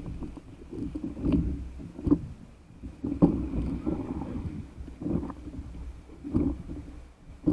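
Water slapping and splashing against the nose of a stand-up paddle board as it moves through chop, in irregular thuds about once a second.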